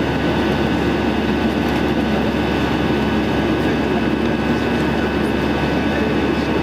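Cabin noise of an Airbus A319 in flight: a steady drone of jet engines and rushing air, with a few constant tones running through it.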